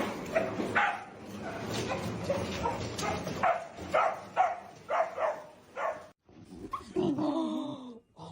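A dog barking in a run of short barks, about one or two a second. Near the end it breaks off abruptly and a different, drawn-out pitched sound follows.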